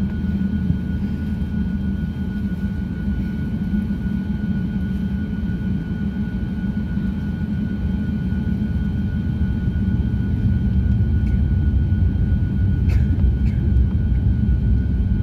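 Cabin noise aboard an Airbus A350-900: a steady low rumble with a constant thin whine, growing louder over the last few seconds.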